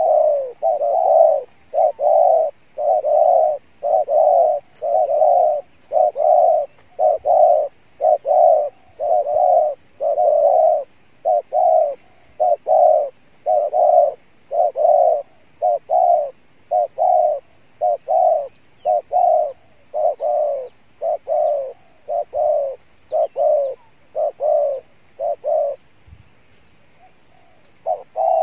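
Spotted dove cooing over and over, a short throaty coo about once a second in an unbroken run that breaks off about 26 seconds in and starts again near the end.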